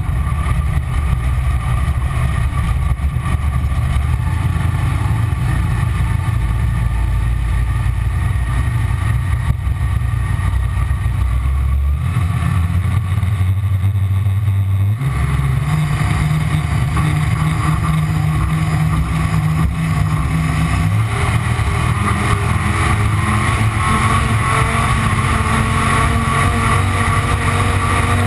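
A V-drive boat's 557 Ford V8 running loud and steady under way. Its note shifts twice around the middle, then the engine speed climbs steadily over the last several seconds.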